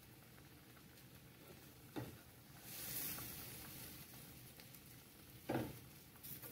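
A metal serving spoon scooping fried potatoes, sausage and vegetables out of a hot skillet onto a plate: a knock about two seconds in, a faint sizzle for a couple of seconds after it, and a louder knock about five and a half seconds in.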